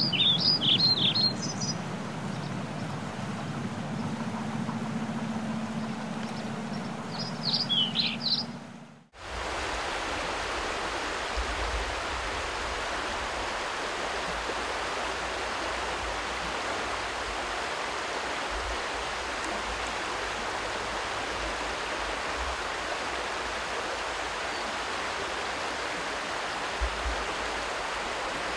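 Steady rush of flowing river water, with some low rumble underneath. Before it comes a short intro sound, a low hum with two brief flurries of high bird-like chirps, which cuts off abruptly about nine seconds in.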